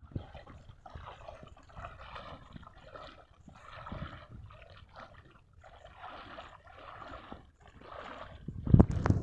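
Wading through knee-deep water: an uneven series of sloshes and splashes, one for each step, under a second apart. A loud low thump near the end.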